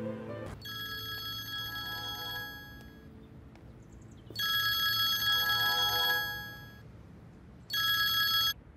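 Smartphone ringtone signalling an incoming call, a melodic chime of several steady tones. It rings three times: quietly near the start, then louder about four and a half seconds in, and briefly again near the end.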